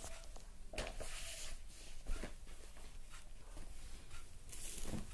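Faint rustling of paper as a textbook is handled and slid off a clipboard, with two brief rustles, one about a second in and one near the end, over a low steady room hum.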